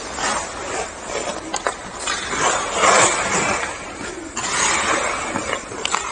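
Hockey skate blades carving and scraping the ice in repeated swells of hiss, one every second or two, with a few sharp clicks of the stick blade on the puck.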